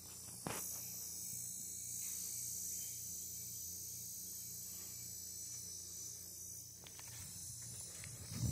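Steady high-pitched chirring of an insect chorus, with one sharp knock about half a second in and some rustling near the end.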